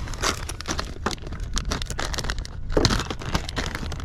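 Close handling noise: rapid crinkling and clicking over a steady low rumble.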